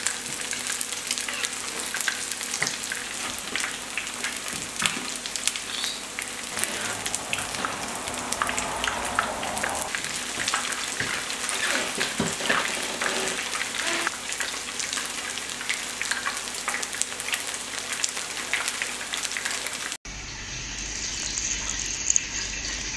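Beer-battered fritters frying in a pan of hot oil: a steady sizzle full of small crackles and pops. About twenty seconds in it cuts to beer being poured from a can into a bowl of flour.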